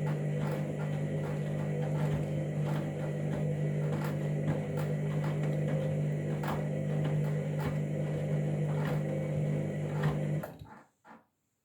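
Candy washing machine running with a steady electric hum and light, irregular ticking, then shutting off abruptly about ten seconds in, during the start of a Whites 40 wash.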